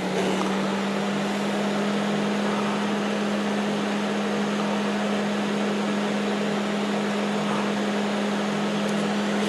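Fan-Tastic Vent Create-A-Breeze RV roof vent fan running at high speed: a steady motor hum under the even rush of moving air.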